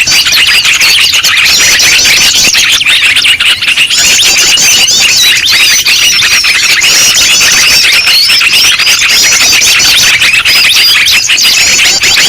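A dense, noisy chorus of many small songbirds chirping and calling at once, with rapid high chirps repeating over and over: a looped bird-luring (pikat) recording.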